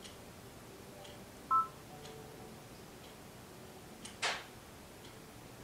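Brother Dream Machine embroidery machine's touchscreen giving a single short two-tone key beep about a second and a half in as the stylus taps the screen. A brief scratchy click follows about four seconds in, over faint ticking about once a second.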